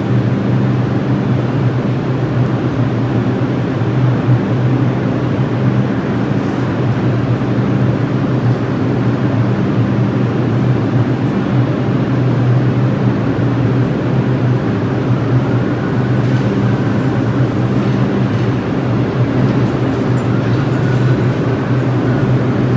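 Bombardier R62A subway train approaching through the station, a steady low rumble, with a faint whine over it in the last several seconds.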